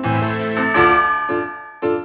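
Background music on a piano-like keyboard: struck notes repeating about twice a second, with a fuller, held chord through the first second and a half.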